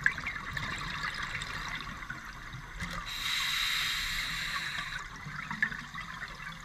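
Underwater scuba regulator exhaust bubbles: a steady fizzing crackle, with a louder rush of exhaled bubbles lasting about two seconds from about three seconds in.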